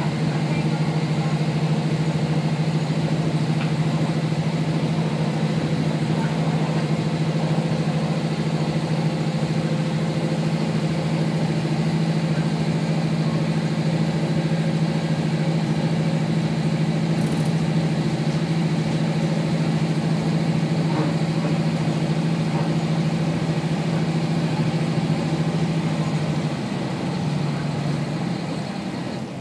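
Kashima Rinkai Railway 6000-series diesel railcar's engine running steadily under way, a strong low drone heard from inside the passenger cabin. About 27 seconds in, the engine note changes and the sound falls quieter.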